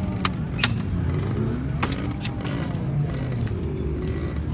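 Engines running, their pitch rising and falling, with a few sharp clicks in the first two seconds.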